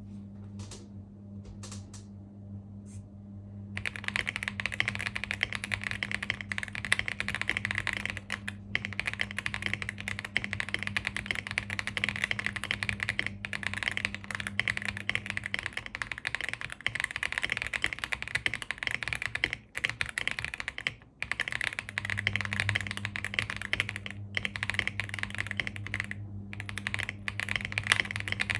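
Stock AULA F75 mechanical keyboard being typed on: a few separate keystrokes at first, then fast continuous typing from about four seconds in, with a few brief pauses. A steady low hum sits underneath.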